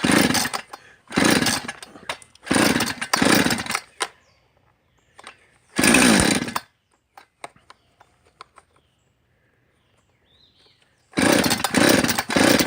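Chainsaw being pull-started over and over: about six short bursts of cranking and sputtering, with a long gap after the fifth, and the engine never catches and keeps running. The owner suspects it is out of gas.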